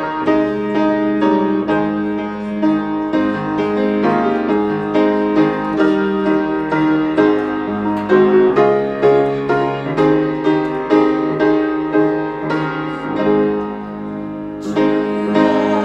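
Piano playing a slow melody over chords, with notes struck in a steady flow.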